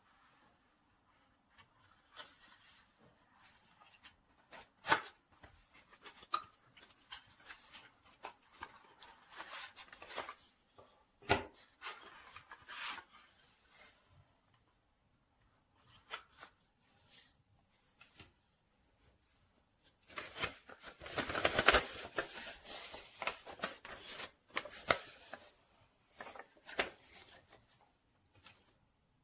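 Hands handling a smartphone box and its packaging: scattered taps and clicks and bursts of rubbing and rustling, with a longer, louder stretch of rustling about twenty seconds in.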